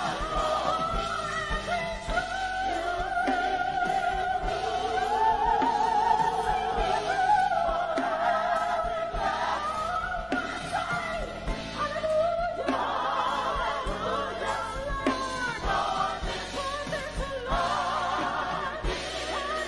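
Gospel choir singing, holding long notes with a wavering vibrato.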